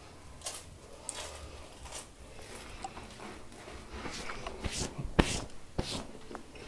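Handling noise from a handheld camera: rustling and scattered knocks, with the sharpest knock about five seconds in.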